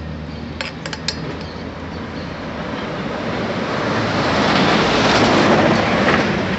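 A few light metallic clicks of an open-end wrench on the bicycle's brake bolt about a second in, then the broad rush of a passing road vehicle swelling up over a few seconds and easing off near the end.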